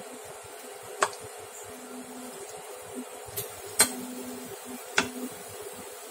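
Liquid boiling hard in a nonstick frying pan, a steady bubbling hiss over a faint hum, with a metal spoon clicking against the pan three times as it stirs.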